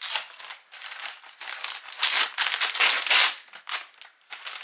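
Crinkly wrapping around a small sweet being handled and torn open, in irregular rustling bursts that are loudest about two to three seconds in.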